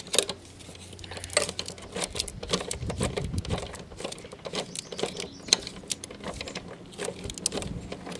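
Hand tool clicking and clinking against metal in irregular bursts while the mounting bolts of a lawn mower engine are worked loose.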